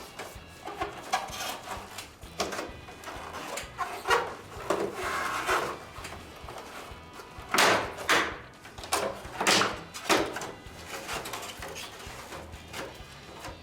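Background music, with a string of sharp clacks and rattles from something being handled, loudest and most frequent about seven and a half to ten seconds in.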